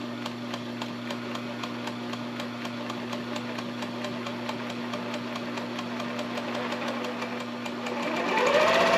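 Sewing machine stitching slowly, its needle ticking in an even rhythm over a steady motor hum. Near the end it speeds up with a rising whine and gets louder.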